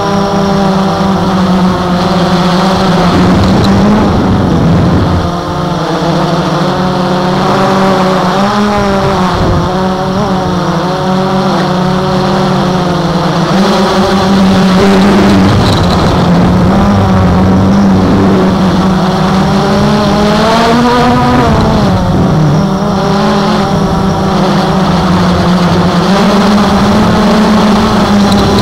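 Blade 350 QX quadcopter's four electric motors and propellers, heard from the camera on board in flight: a loud, steady buzzing hum whose pitch rises and falls several times as the throttle changes.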